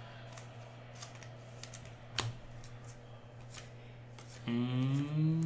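Trading cards being handled and flipped one by one: faint scattered clicks and card snaps, the sharpest about two seconds in. Near the end a man's voice comes in with a drawn-out sound.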